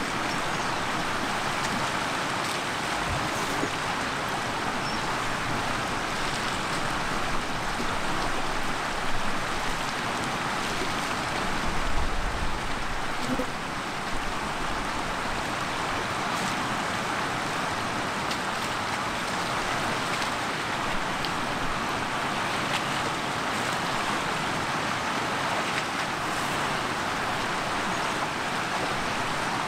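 Steady rushing of shallow river water running over rocks, with elephants wading in it. A brief low rumble about twelve seconds in is the loudest moment.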